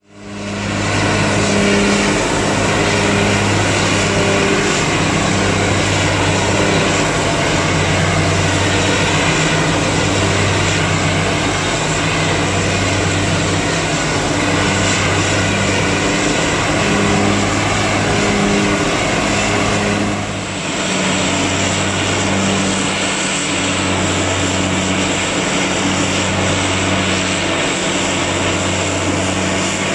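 Claas Jaguar self-propelled forage harvester working in standing maize: a loud, steady engine and chopper drone with a low hum that pulses on and off every second or two. The sound shifts abruptly about twenty seconds in.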